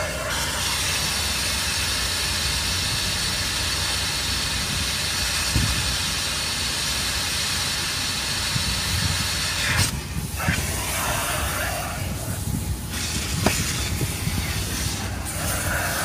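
Car-wash vacuum running steadily through its hose, a loud airy hiss of suction. The hiss thins out briefly twice, about ten and thirteen seconds in, as the nozzle is worked over the upholstery, with a few low knocks from the nozzle and hose.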